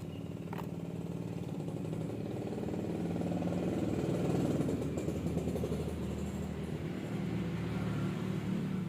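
A motor running steadily with a low, even hum, growing louder toward the middle of the stretch.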